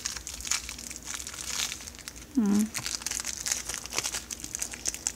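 A small plastic parts bag crinkling and crackling as it is handled and opened by hand, in quick irregular crackles.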